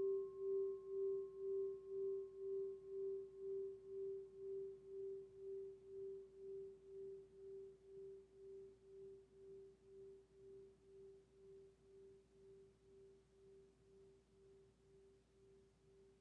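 A singing bowl ringing out and slowly fading, one low tone pulsing about twice a second, with a higher overtone dying away in the first few seconds.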